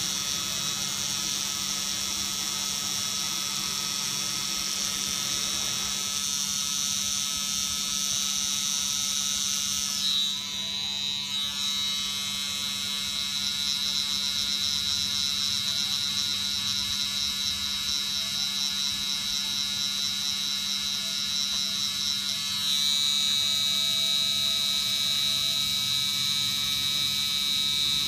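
Permanent-makeup tattoo pen running with a steady high-pitched buzz. It falters briefly about ten seconds in, then runs on with a slightly changed whine that grows a little louder about twenty-three seconds in.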